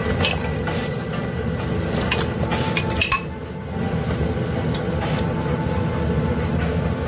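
Clinks and knocks as sliced rice cakes are tipped from a bowl into a pot of beef broth, several sharp clicks in the first three seconds, over a steady low hum.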